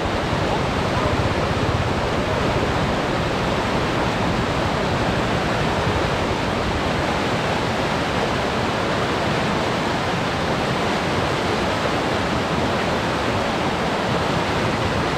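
Rapids of a flooded river rushing steadily, a continuous even rush of fast turbulent water.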